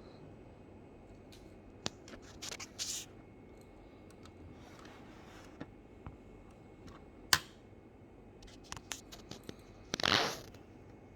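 Hands handling a model car's packaging: scattered clicks and short rustles, a sharp click about seven seconds in, and a louder noisy burst about half a second long around ten seconds in.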